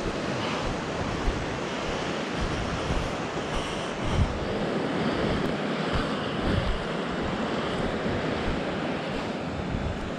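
Fast mountain river rushing over rapids, a steady wash of water noise, with wind buffeting the microphone in uneven low rumbles.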